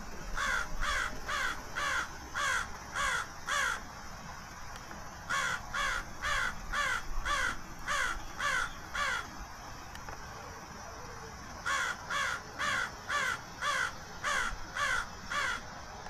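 Crows cawing in three runs of about eight or nine caws each, a little over two caws a second, with short pauses between the runs.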